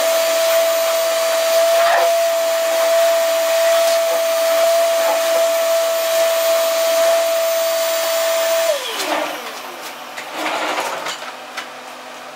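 Shop vacuum running with a steady high whine, sucking rust debris out of the inside of a door bottom. About nine seconds in it is switched off and the whine falls in pitch as the motor spins down.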